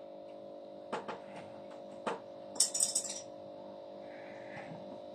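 A few sharp clicks and then a short metallic clinking rattle as a fitness band's strap is handled and fastened on the wrist, over a steady low hum.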